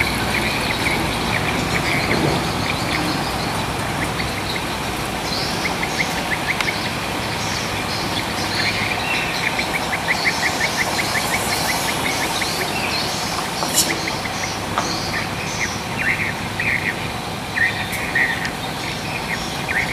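Birds chirping and calling repeatedly, with a fast run of chirps about halfway through, over a steady low rumble of heavy trucks on the dirt road.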